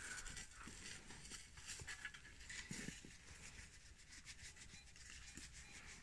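Faint, irregular rustling and scratching of a fabric work glove turning a small dug coin over in the hand, with scattered light clicks.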